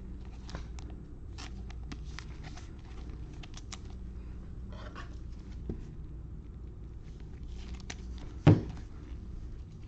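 Handling of a trading card in plastic: soft rustles and small clicks as the card is slid into a clear sleeve and a hard plastic holder, with one louder thump about eight and a half seconds in.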